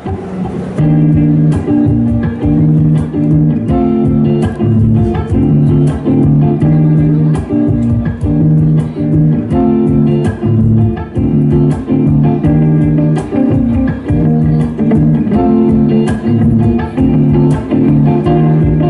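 Band music: guitar and bass guitar playing a repeating figure over a steady beat of sharp hits.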